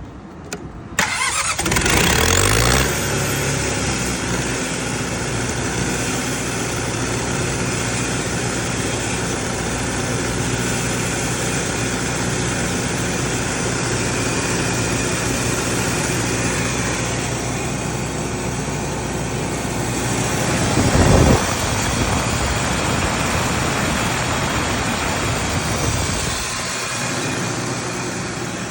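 Generac 30 kW diesel generator's engine cranking and catching about two seconds in, its pitch climbing as it comes up to speed, then running steadily. About twenty seconds in there is a brief louder surge.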